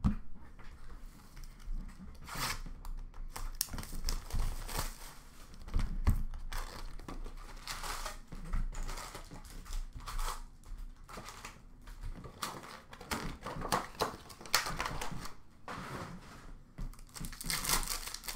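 Wrappers of Upper Deck hockey card packs crinkling and being torn open, and packs and cards being handled, in irregular rustling bursts.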